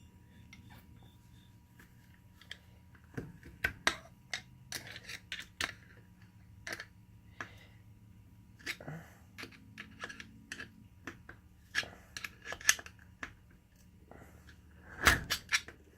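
Steel hand tools clicking, scraping and tapping against the parts of a Spartan Locker differential locker as its spring-loaded pins are compressed. The clicks come irregularly, and there is a louder knock near the end.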